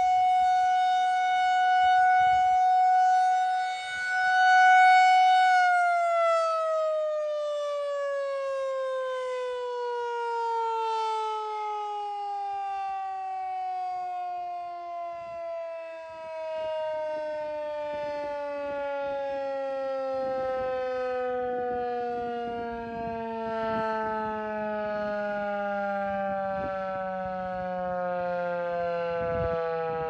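Federal Signal 2001-130 rotating single-tone tornado siren sounding a steady high tone whose loudness swells and dips as the horn turns. About five seconds in it winds down at the end of its test, the pitch falling slowly and smoothly through the rest.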